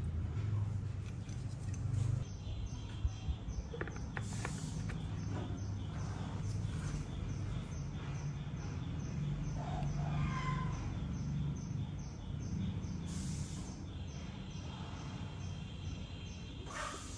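Liquid poured from a bottle into a chainsaw's filler, with a few light clicks of the bottle and faint bird chirps in the background.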